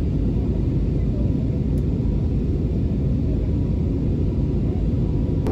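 Steady low rumble of jet engines and airflow heard inside the cabin of an Airbus A320neo climbing out shortly after take-off.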